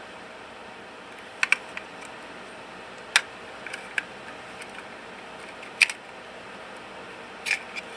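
Small plastic and metal clicks and snaps of a PCMCIA WiFi card's frame and circuit board being worked apart by hand: scattered sharp clicks, a double one about one and a half seconds in, another double near six seconds and one near the end.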